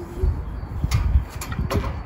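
Wind rumbling in gusts on the microphone, with a few light clicks and knocks.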